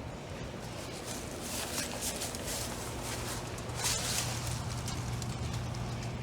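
Footsteps crunching in bursts, loudest about two seconds in and again near four seconds, over a steady low hum that grows stronger in the second half.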